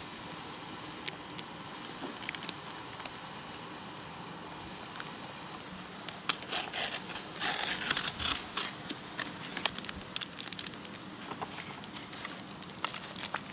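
Small knife clicks and taps on a plastic board while salo is sliced, then crinkling and tearing of a plastic-and-foil instant-food cup as its lid is peeled off and its contents handled, followed by a few more light clicks and rustles.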